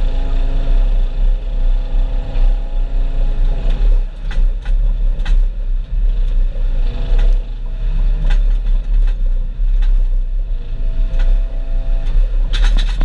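Engine of farm machinery loading a feed mixer wagon, running steadily with a deep rumble, its pitch shifting a few times. Scattered knocks and clatters come throughout, with a cluster of them near the end.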